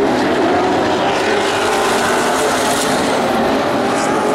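Several vintage modified race cars running at speed on a short oval, their engine notes overlapping and rising and falling as they pass.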